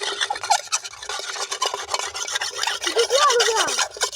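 Rapid, continuous scraping at a cooking pot blackened over a campfire, many quick rasping strokes. A short voice sound rises and falls about three seconds in.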